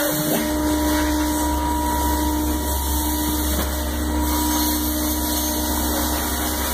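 AXYZ 6010 CNC router's axis drive motors running as the gantry and spindle head travel to the machine's home position. A steady hum with a whining tone sets in about half a second in and holds.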